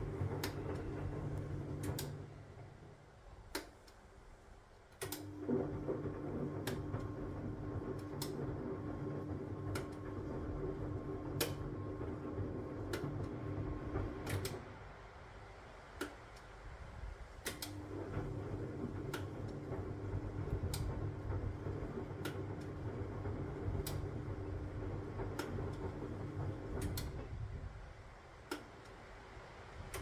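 Huwa Deluxe 65 washing machine on its wash cycle: the Hanning wash motor turns the laundry-filled drum for about ten seconds at a time with a steady hum, then stops for about three seconds as the drum reverses direction. Sharp clicks are scattered throughout.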